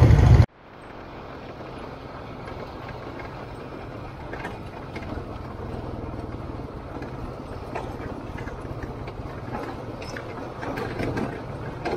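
Loud ATV engine noise cuts off abruptly half a second in. A low, steady engine hum follows, as of ATVs idling, with scattered faint clicks.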